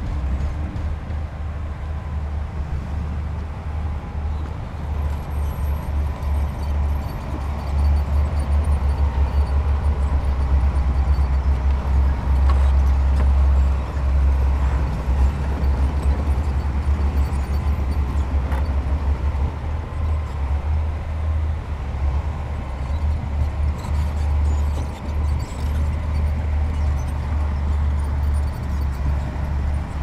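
Heavy earthmoving machine's diesel engine running steadily with a deep rumble, getting louder about eight seconds in.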